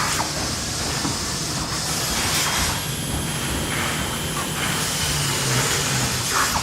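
Factory ambience: a steady din of running manufacturing machinery, with several short bursts of hissing air or steam.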